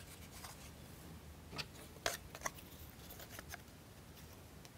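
Faint handling of plywood model parts: a few light clicks and rubs around the middle as half a wooden toothpick is pushed through a hole in the plywood chassis bottom.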